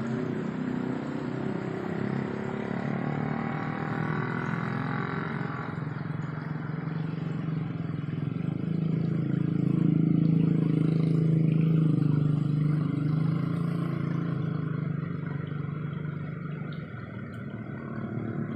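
A motor vehicle's engine running steadily nearby with a low drone, growing louder about eight seconds in and easing off again after about thirteen seconds.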